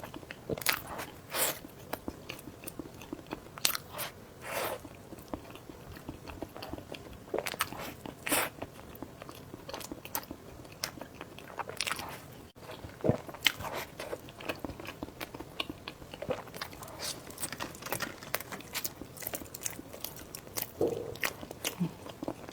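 Close-up biting and chewing of soft scallion bread rolls filled with sauce and coated with pork floss: irregular small crackles and mouth clicks.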